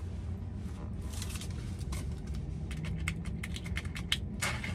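Fountain soda sipped through a straw, then a run of small clicks and crackles from a drink cup and its packaging being handled, with a louder rustle near the end, over a low steady car-cabin hum.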